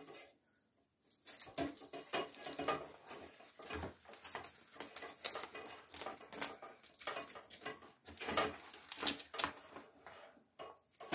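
Velcro straps and the fabric laundry bag being handled and wrapped around an aluminium frame bar: irregular soft scratching, rustling and small clicks, starting about a second in.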